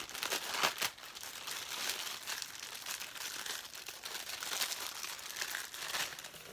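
Packaging crinkling and rustling as a new wallet is unwrapped by hand, with a few sharper crackles in the first second.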